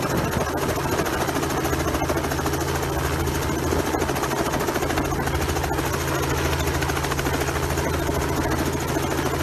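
Small two-bladed helicopter hovering low overhead: a steady engine drone under the rapid, even chop of the main rotor blades.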